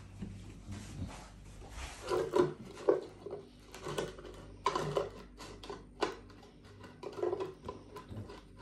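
Irregular short knocks and scuffs on a tiled floor from a Dogue de Bordeaux moving about, with a few louder ones between about two and six seconds in.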